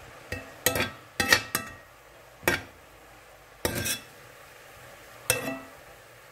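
Metal spoon knocking and scraping against a cast-iron skillet while stirring sautéing greens: about seven irregular clanks with short ringing clinks.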